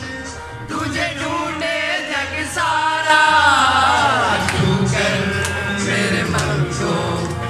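A man singing a Hindi film song into a microphone over amplified backing music, with a long held note about three seconds in that slides down in pitch.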